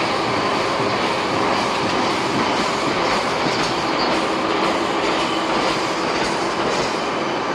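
Machinery of a plywood core veneer peeling line running: a loud, steady mechanical noise from the line and its veneer conveyors and stacker.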